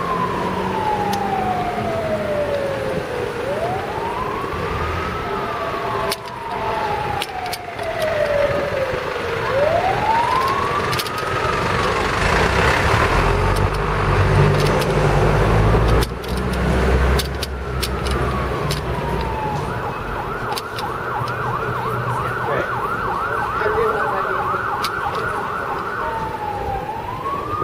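Emergency vehicle siren wailing, each slow rise and fall taking a few seconds, then switching to a fast yelp about twenty seconds in and back to the wail near the end, over city traffic noise. A low rumble swells midway.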